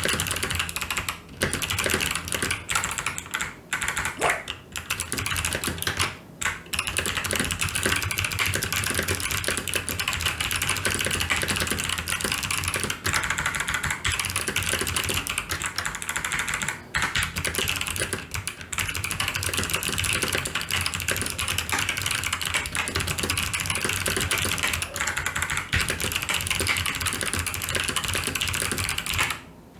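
Fast continuous typing on a TVS Gold Pro mechanical keyboard with clicky Kailh Box White switches, a dense rattle of key clicks with a few brief pauses, stopping just before the end.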